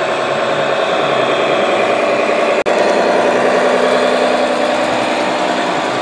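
Radio-controlled model truck driving, its drive and engine-sound running as a steady mechanical hum with a fine rapid throb, broken by a very brief dropout about two and a half seconds in.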